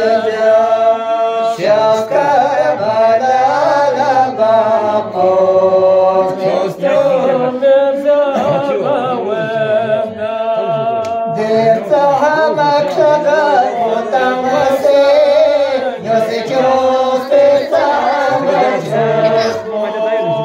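Two men chanting verses unaccompanied, in long drawn-out, wavering phrases.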